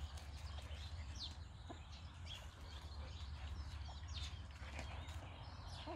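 Hens clucking faintly at their feed, a scatter of short calls over a steady low rumble.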